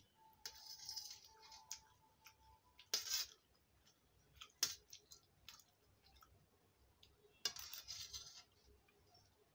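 Steel spoons clinking and scraping against a steel plate of pasta: a few sharp metallic clicks and two short scrapes, faint overall.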